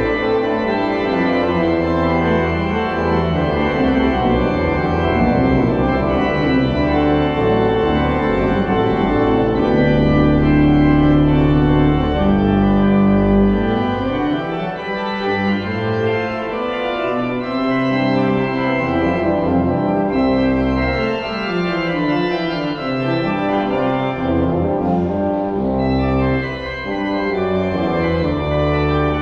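Church organ playing sustained chords over a moving bass line.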